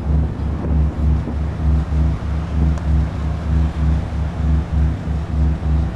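A deep, low rumble that throbs about twice a second, steady and unchanging. It is a synthesized sound effect from GarageBand, made to pass as a strange underground noise.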